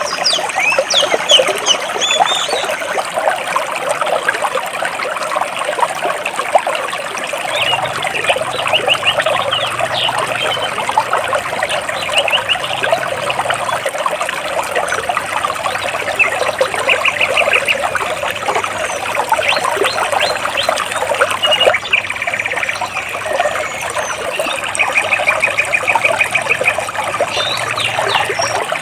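Water rushing and splashing steadily between large rocks, with small birds chirping over it; a few rapid trills of evenly repeated notes stand out now and then.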